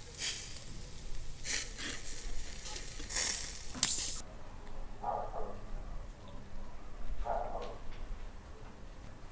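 Meat skewers sizzling over hot charcoal, with several short, loud bursts of hissing in the first four seconds, then quieter.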